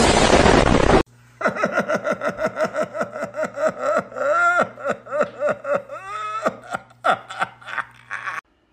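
A person laughing hard in a long run of quick, falling 'ha' bursts, with a short break near the end. It is preceded by about a second of loud hiss-like noise that cuts off abruptly.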